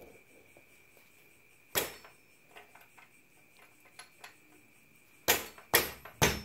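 Knocks on a motorcycle's rear wheel and axle, driving the axle forward in the swingarm slots to take up the slack in the drive chain. There is one sharp knock a little under two seconds in, a few faint ticks, then three loud knocks in quick succession near the end.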